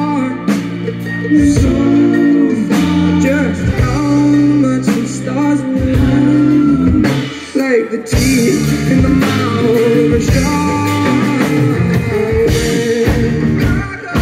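Rock band playing live: electric guitar, electric bass, mandolin and drum kit. There is a short dip in the music about halfway through.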